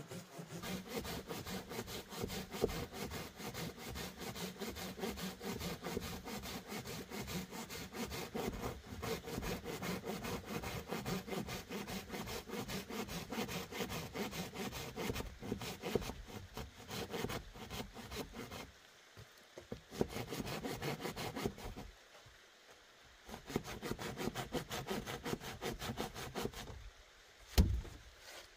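Rapid, repeated rasping strokes on wood, steady for most of the clip, breaking off twice near the end, then a single sharp knock.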